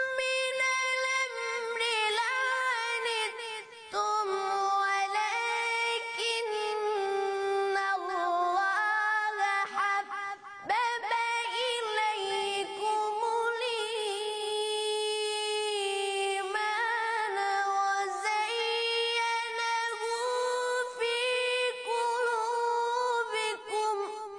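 Solo voice reciting the Quran in a melodic, drawn-out tajweed style. It holds long, high-pitched notes with wavering ornamental turns, pausing briefly twice for breath, and fades out at the end.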